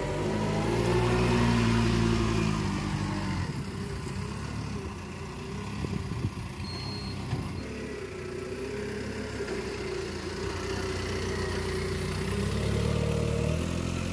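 Forklift engine running and revving as it carries loaded pallets, its pitch rising and falling with the throttle. A steadier whine runs through the second half, with a few knocks and a brief high beep about seven seconds in.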